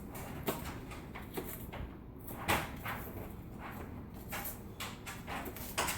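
A kitchen knife chopping through an onion onto a cutting board: irregular knocks, a few seconds apart.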